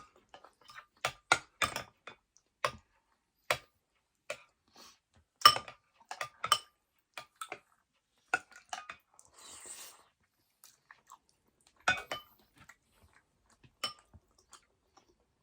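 Close-up eating sounds: irregular sharp clicks and smacks from a spoon and mouth, with chewing, and a brief soft hiss about ten seconds in.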